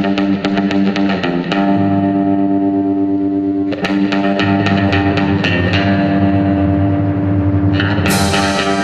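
Background music with plucked guitar notes over a steady held bass, with a new phrase starting about four seconds in.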